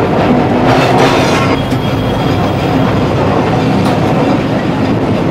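Electric street tram running, its wheels rumbling on the rails with a few clicks, heard from inside the car.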